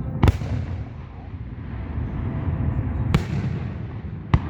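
Aerial fireworks shells bursting: three sharp bangs, the first just after the start, one about three seconds in and one near the end, each echoing briefly over a steady low rumble.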